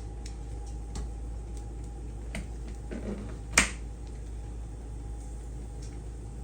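A few light taps and one sharp click about three and a half seconds in, from handling utensils and food while stacking a burger, over a steady low hum.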